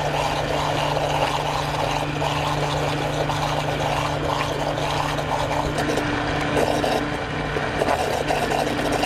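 Immersion (stick) blender running steadily in a saucepan of beurre blanc: a constant motor hum over the churning of the sauce as cubes of butter are blended in to emulsify it.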